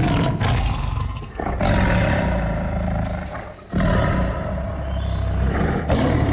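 A large animal roaring in deep, rough calls, three long stretches with short breaks about one and a half and three and a half seconds in.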